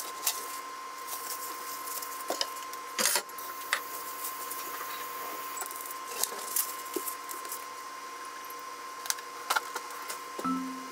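Kitchen handling sounds: a few sharp clinks and knocks as a frying pan is set on the gas stove's grate and moved about, then light rustling as raw fish fillets on a tray are handled with a paper towel, over a faint steady high tone. Background music comes back just before the end.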